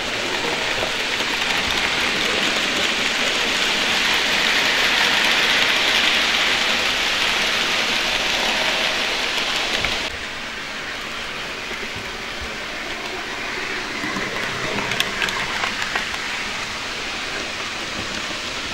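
Model trains running on the layout track, a steady rolling hiss that swells over the first few seconds and drops suddenly about ten seconds in, then goes on more quietly with a few clicks near the end.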